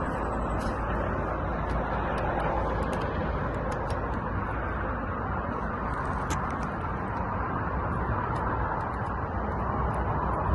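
Steady hum of road traffic, with a few faint light clicks over it.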